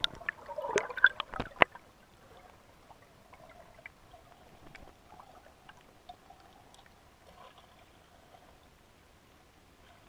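River water gurgling and splashing around a submerged camera, with several sharp clicks in the first couple of seconds, then settling into a faint, steady underwater wash with occasional small ticks.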